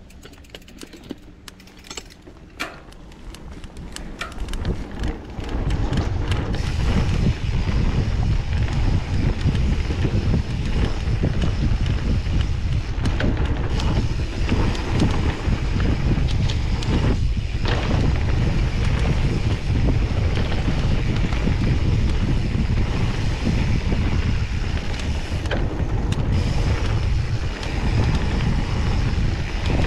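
Wind buffeting the microphone over mountain bike tyres rolling on a dirt flow trail. The noise builds over the first six seconds or so as the bike picks up speed, with scattered sharp clicks and rattles at first, then holds steady.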